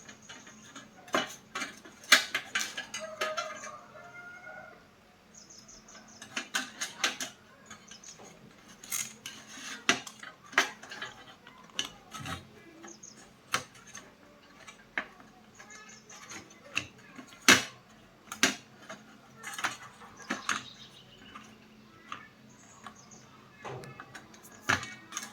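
Irregular sharp clicks and metallic clinks of small tools and hard parts being handled and set down during electronics repair work.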